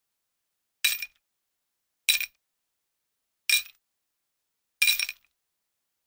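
Four short, bright metallic clinks, evenly spaced about a second and a third apart, each ringing briefly.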